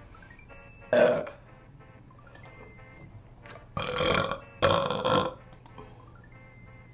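A woman burping three times: a short burp about a second in, then two longer burps back to back around four and five seconds in, over faint background music.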